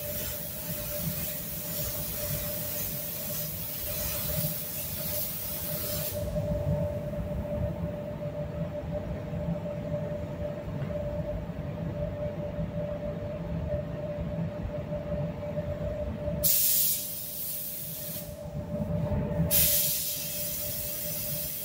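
Paint booth ventilation running with a steady low rumble and hum, while a compressed-air spray gun laying on clear coat hisses on and off. The gun sprays for about the first six seconds, stops, gives a short burst near the middle of the second half, and starts again near the end.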